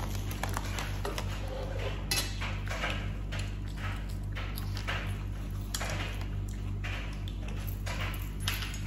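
Cutlery clicking and scraping against plates, many light irregular clinks, over a steady low hum.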